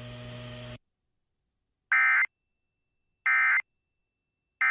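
Three short Emergency Alert System SAME data bursts about a second apart, each a fraction of a second of buzzy digital tones: the end-of-message code that closes a NOAA Weather Radio alert. Before them, a steady low radio hum cuts off less than a second in.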